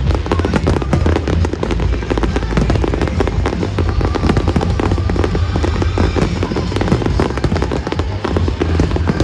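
Aerial fireworks bursting in a dense, continuous barrage of rapid bangs and crackles, with pyromusical show music playing over loudspeakers underneath.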